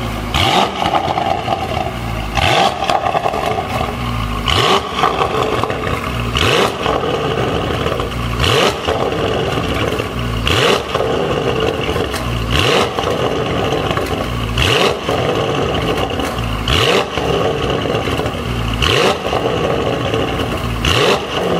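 Porsche Panamera GTS V8 with a full Fi Exhaust system, revved in sharp throttle blips about every two seconds, each rev falling back between blips.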